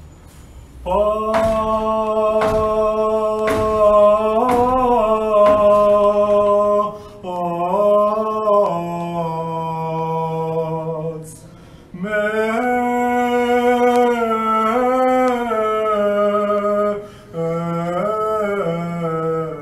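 A man's voice chanting Armenian liturgical chant solo, in four phrases of long held notes with ornamented turns, separated by short breaths. A few faint clicks sound in the first seconds.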